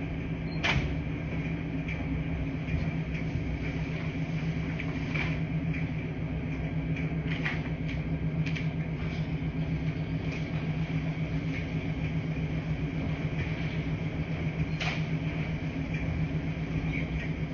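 Laundry machines running with a steady low hum, with a few light clicks or knocks now and then.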